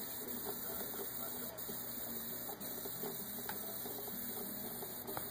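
A thin stream of tap water running steadily from the faucet into a sink, over a low steady hum, with a few faint clicks as a cat laps at the stream.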